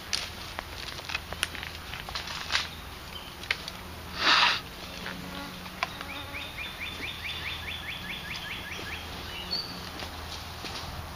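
Scattered crackles of twigs and leaves as people move through woodland brush, with a brief hiss about four seconds in. From about six to nine seconds a rapid trill of short rising chirps, about seven a second, sounds above it.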